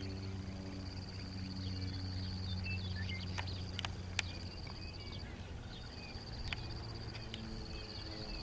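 Open-field ambience: a steady high insect drone over a low hum, with scattered short chirps and a few sharp clicks about halfway through.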